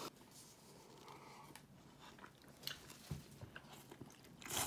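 Quiet chewing of ramen noodles with small soft clicks, then a louder slurp near the end.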